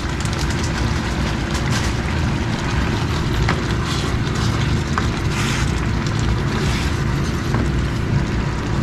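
Steady low rumbling hum of a kitchen fan, with a few light clicks and scrapes of a ladle stirring tofu and sauce in a pan.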